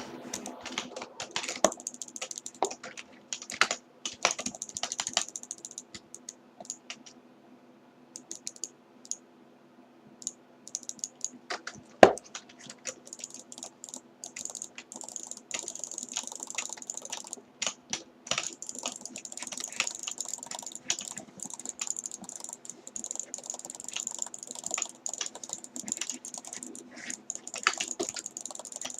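Rapid, irregular clicking much like typing on a keyboard, with a lull about a third of the way in and one much louder sharp click about 12 seconds in. A faint steady hum lies underneath.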